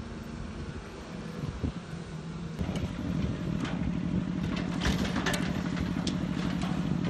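Hydraulic excavator's diesel engine running, growing louder about two and a half seconds in as it works, with a run of scrapes and knocks from the bucket trimming the soil slope.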